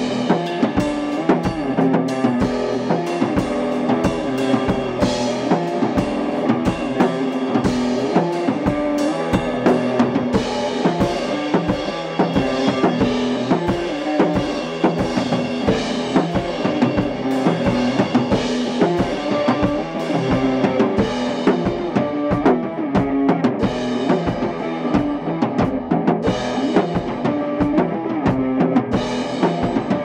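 A Les Paul-style electric guitar played through an amp together with a drum kit, with steady, continuous drum hits under sustained guitar notes: a live band jam.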